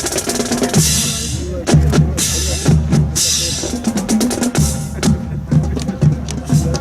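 Drum-heavy music with a steady beat, with short hissing crashes about one, two and three seconds in.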